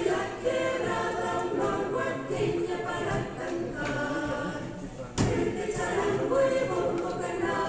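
Choir singing, with one sharp thump about five seconds in.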